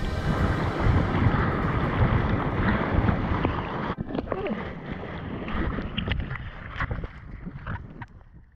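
Whitewater rushing around a surfboard, with wind buffeting the microphone. About halfway through the rush drops and crackling foam and small knocks take over, fading out at the end.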